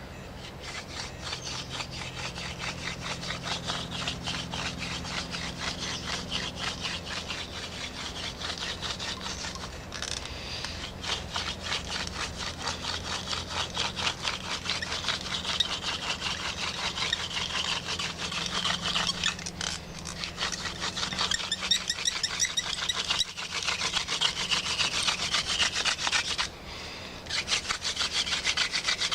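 Hand drill fire-making: a bamboo spindle with a mugwort tip spun rapidly back and forth between the palms, grinding in the socket of a split yucca hearth board. A fast, steady, scratchy rubbing, broken by a few brief pauses and growing louder toward the end as the speed builds to heat the fibres.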